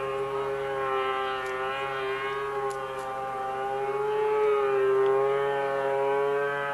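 A steady held droning tone with many overtones, wavering slightly in pitch and swelling a little about two-thirds of the way in.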